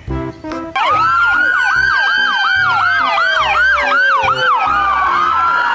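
Several police sirens sounding together, starting suddenly about a second in: fast repeating up-and-down yelps, about three a second, over a slower falling wail, settling into longer held tones near the end.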